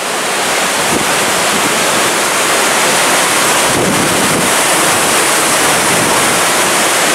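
Loud, steady rush of fast-flowing creek water.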